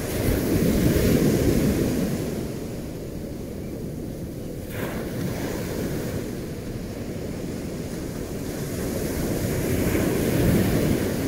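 Ocean surf washing over rocks as a low, rumbling rush of water with wind, swelling loudest at the start and again near the end.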